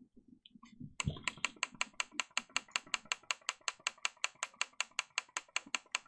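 Gaming mouse buttons clicked rapidly and evenly, about nine sharp clicks a second, starting about a second in after some soft handling.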